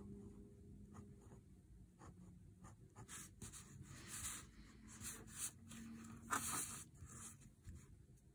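Fine-tip ink pen scratching across a paper tile in a run of short strokes, faint, with the strokes thickest from about three to seven seconds in.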